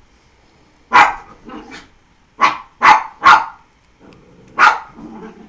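Dog barking in play: about six sharp barks, with a quick run of three in the middle.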